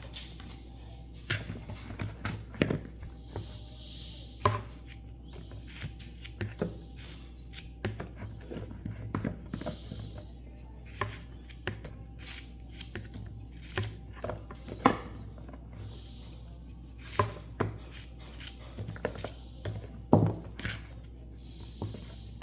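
Knife cutting vegetables on a cutting board: irregular knocks of the blade hitting the board, some much louder than others, over a steady low hum.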